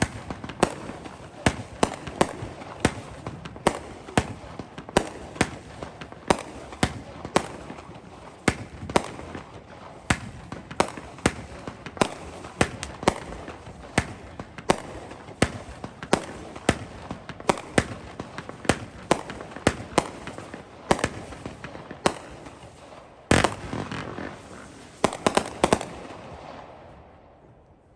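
Realtree 'Real American' firework going off: a steady string of sharp reports, about two a second, then a denser volley near the end before it dies away.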